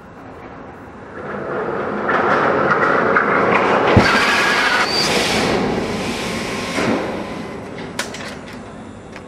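Sonic Boom drop ride's pod falling down its 360 ft tower into the air-brake tube. A broad rushing noise builds about a second in and swells, with a sharp thud about four seconds in, then fades as the air compressed in the tube brakes the pod.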